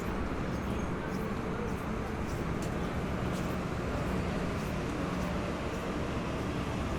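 Steady ambience of a busy pedestrian street: a constant murmur of passers-by, with faint scattered footsteps and clicks over it.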